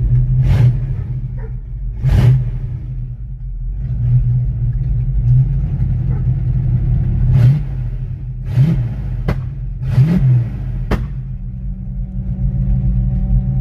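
1989 Ford Mustang GT's 5.0 V8 idling, with a few brief revs and about seven sharp cracks scattered through. The owner suspects it is dead on a cylinder.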